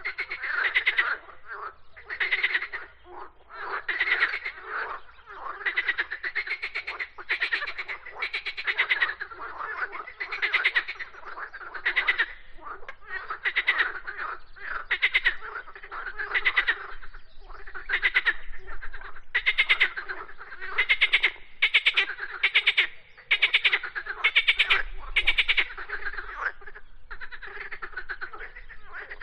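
A dense chorus of many overlapping animal calls, each a short rattling trill under a second long, repeating without a break.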